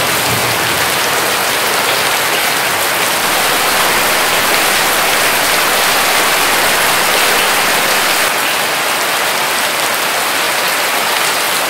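Hail mixed with rain falling on wet stone paving slabs: a dense, steady patter of small impacts.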